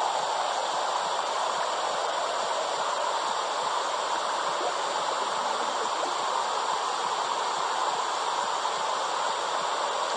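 Womb sound for soothing babies: a steady, even whooshing noise, mid-pitched and unchanging, with no heartbeat or other rhythm in it.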